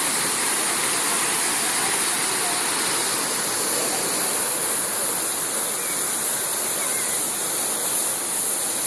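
Waterfall rushing steadily, an even roar of falling water with no breaks.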